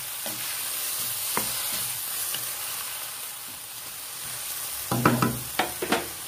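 Shrimp, tofu and vegetable strips sizzling in a wok as a wooden spatula stirs them, scraping and knocking against the pan, with a few louder knocks about five seconds in.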